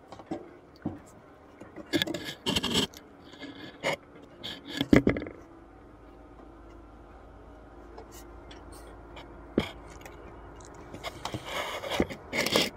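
Wooden beehive parts being handled as the hive is opened: irregular scrapes and knocks, the loudest knock about five seconds in, with a cluster of scrapes near the end.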